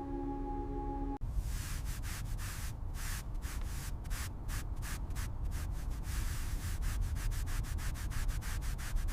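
A sustained chime tone briefly at the start, then rapid rhythmic rubbing strokes like hand sanding on a surface. The strokes come about four a second and get quicker in the last few seconds.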